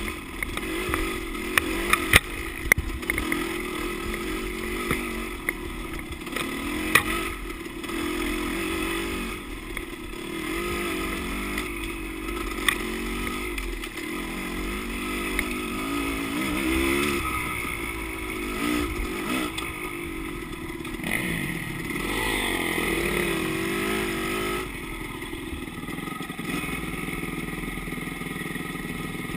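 Dirt bike engine running under way, its pitch rising and falling with the throttle, with sharp rattles and knocks now and then.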